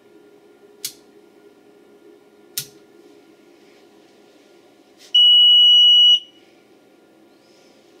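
Two clicks of a stepped control switch being turned down, then one loud, steady, high-pitched electronic beep lasting about a second, a little past the middle.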